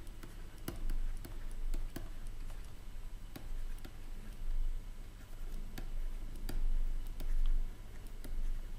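A stylus tapping and scratching on a tablet screen during handwriting, heard as a string of irregular short clicks, over a steady low hum.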